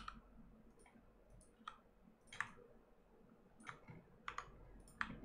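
Faint, irregular clicking of a computer mouse and keyboard, about a dozen sharp clicks spread unevenly.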